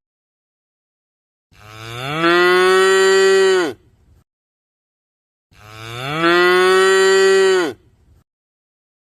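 Cattle mooing: two long, identical moos a few seconds apart. Each rises in pitch at the start, holds steady, then drops away at the end.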